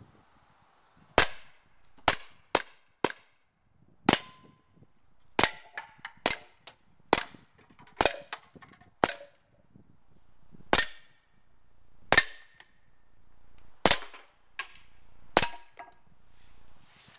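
Winchester M1911 CO2 blowback BB pistol firing a string of about fifteen sharp shots, irregularly spaced, at tin cans. The cans are being hit and knocked off the bench.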